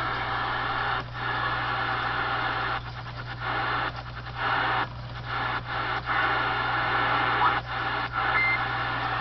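Cobra 148 CB radio's receiver hissing with static through its speaker as the frequency is stepped through, the hiss dropping out briefly several times, over a steady low hum.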